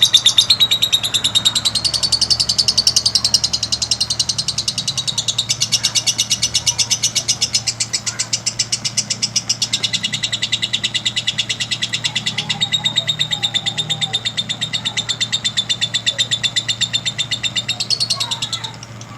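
Lovebird giving a long, unbroken trill of fast, evenly spaced high chirps, shifting slightly in pitch along the way and stopping shortly before the end.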